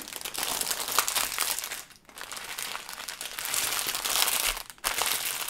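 Clear plastic sleeve of small zip-lock bags of diamond painting drills crinkling as it is handled and turned over, in a long stretch broken by short pauses about two seconds in and near the end.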